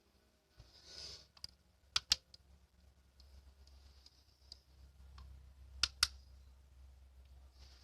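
Sharp clicks in two quick pairs, about two and six seconds in, over a low steady hum that comes on just under a second in.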